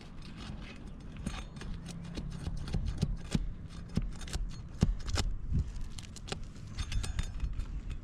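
Sealant bonds of 3-tab asphalt shingles cracking and snapping as the shingles are pried loose, in irregular sharp clicks and snaps.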